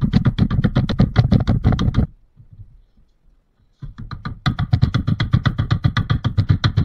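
Wooden mallet knocking pallet-wood drawer dividers down into their glued dados: a rapid run of knocks, about seven a second, then a pause of under two seconds, then another run of knocks.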